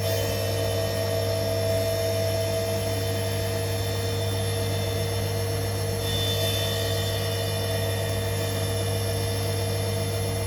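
Bosch Maxx 4 washing machine motor running with a steady hum and several high whining tones, a further high whine joining about six seconds in; the owner takes the sound for a bad motor.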